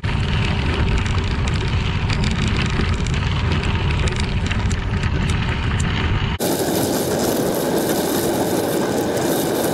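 Bicycle riding on a crushed limestone gravel trail: a steady wind rumble on the microphone with the small crackle of tyres on gravel. About six seconds in the sound changes abruptly to a brighter, hissier rush with much less low rumble.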